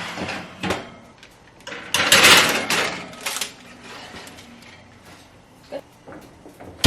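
Oven door opening and a metal cookie sheet going in: a loud scraping rush about two seconds in, a few knocks, and a sharp clack near the end.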